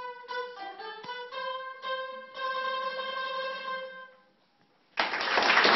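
Small ensemble of plucked string instruments playing the closing phrase, ending on a held chord that dies away about four seconds in. After a moment of silence, applause breaks out near the end.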